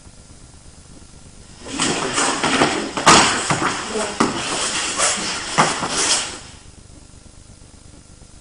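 Two people grappling on a training mat: scuffling with several sharp slaps or blows, starting about two seconds in and stopping about four and a half seconds later. A steady tape hiss lies under the quiet parts.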